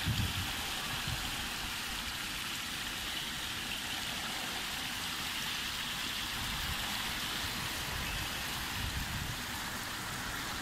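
Water running down a wide stepped cascade fountain, a steady even rush of splashing water.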